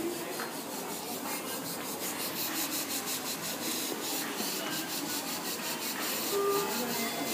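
Airbrush spraying paint in short, quick hissing puffs, several a second, as the artist works fine detail on a portrait.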